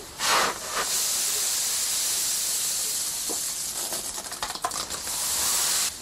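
Dried coffee beans rattling and hissing as a wooden shovel pushes through a heap of them: a sharp scrape just after the start, then a steady granular hiss with scattered small ticks.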